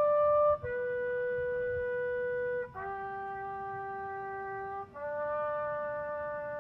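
A bugle plays a slow call in long held notes. The note sounding at the start ends about half a second in. Three more follow, each held about two seconds: two step down in pitch, then the last jumps back up.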